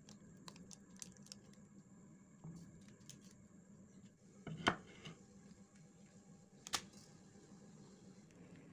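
Quiet handling of small plastic seasoning sachets squeezed out over a bowl, with light clicks and rustles and two sharper knocks, one about halfway through and another two seconds later.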